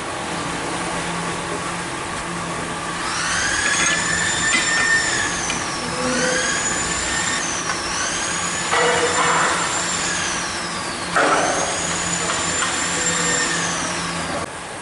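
An electric motor whine that rises in pitch, holds and winds back down, four times over, with short rushes of noise in the middle.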